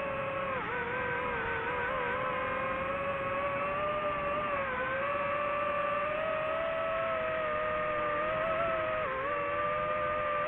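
DJI FPV drone's motors and propellers whining steadily in flight, the pitch dipping briefly about three times.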